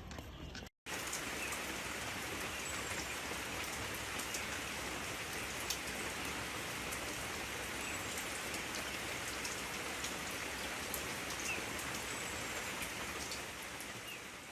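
Steady hiss with many scattered light ticks, a rain-like patter, starting after a brief cut to silence about a second in and fading out near the end.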